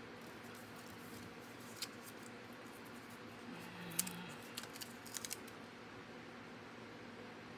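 Cardstock pieces being handled and pressed down on a glass cutting mat: a few sharp clicks and taps, the loudest about four seconds in, followed by a quick cluster of smaller ticks, over faint room hiss.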